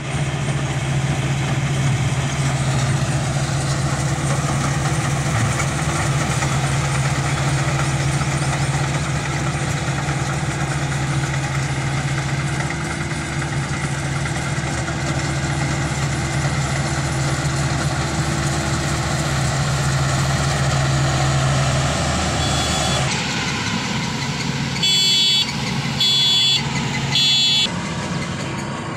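Tracked rice combine harvester running steadily with a low engine hum as it cuts and threshes. About 23 seconds in the sound drops suddenly, and three short beeps follow about a second apart, like the machine's reversing alarm.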